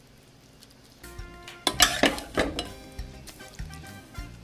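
A serving spoon knocking and scraping against the pot and plate as cooked lentils are spooned out, starting about a second in with several sharp clinks.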